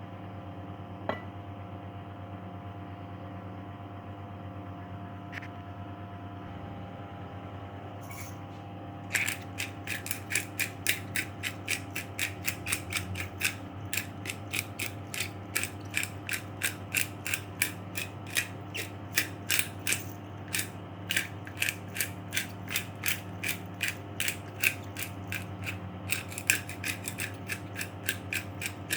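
Rapid mechanical clicking, like a ratchet or small gears being turned, starting about nine seconds in at roughly four to five clicks a second, uneven in loudness, over a steady low hum.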